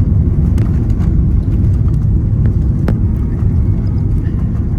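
Steady low roar of an airliner cabin in flight: engine and airflow noise, with a couple of faint clicks.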